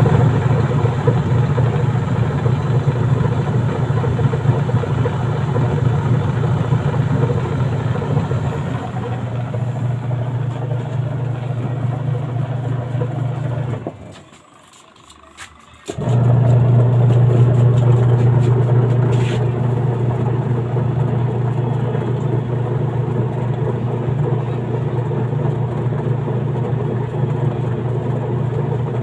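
Washing machine wash motor running with a steady low hum. It stops abruptly about 14 seconds in and starts again two seconds later.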